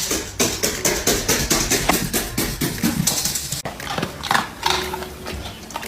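Background music with percussion and a string of knocks and clicks.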